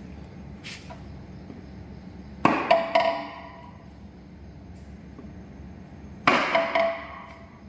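Heavy sledgehammer blows on a six-cylinder Cummins engine block: two blows about four seconds apart, each a quick cluster of two or three clanging hits with a metallic ring that dies away, struck to knock out pistons seized in their bores.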